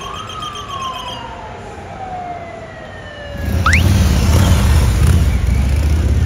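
Police car siren wailing: one short rise, then a long slow fall in pitch. About three seconds in it gives way to a louder low rumble, with one quick upward chirp.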